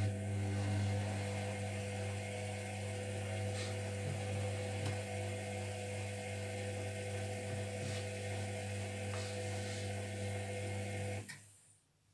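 Zerowatt/Hoover Performa 1000 washing machine's drum motor running through one tumble of the wash, a steady hum with a higher whine. It stops near the end with a click.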